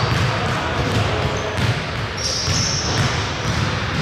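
A basketball being bounced on a gym court, with repeated dull thuds, and sneakers squeaking high and briefly on the floor about midway through.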